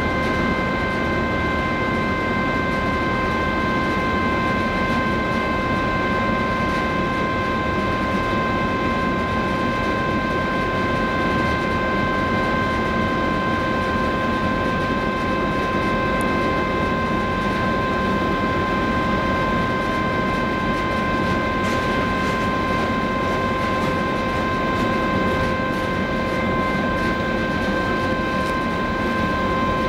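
Steady drone of the cruise ferry Silja Symphony's machinery as she starts to pull away from the quay: an even rumble under a constant hum of several high steady tones.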